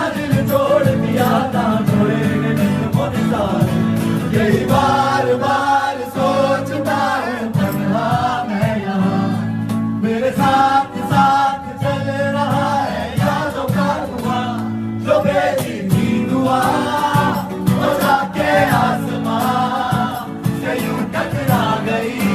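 A song with singing voices over steady musical accompaniment.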